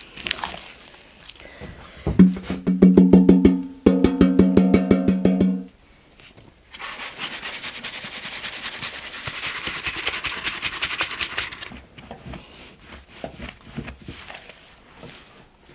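A round wooden flour sieve being shaken hard, its bentwood rim rattling with a drum-like ring for about three seconds. About a second and a half later comes a steady hiss of flour sifting through the mesh, lasting about five seconds. Soft pats of hands working flour follow near the end.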